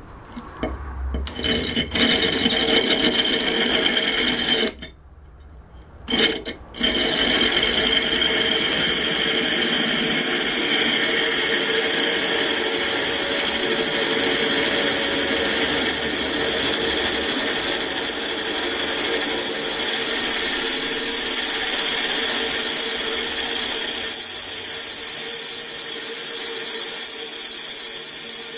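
Electric drill spinning a diamond-tipped cutter into a thick glass bottle, grinding through the glass. It starts and stops a few times, drops out for about two seconds around five seconds in, then runs steadily with a high whine.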